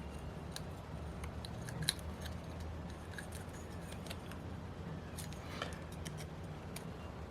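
Faint, scattered small clicks and scrapes of a tool picking at a stubborn gasket stuck to a YS-45FS model engine's carburetor body.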